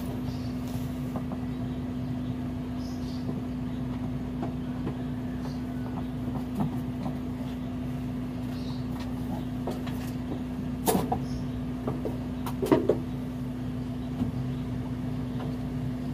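Steady low hum with a few sharp clicks and knocks as hands work at wiring under a vehicle's dashboard. The loudest knocks come about eleven seconds in and again a couple of seconds later.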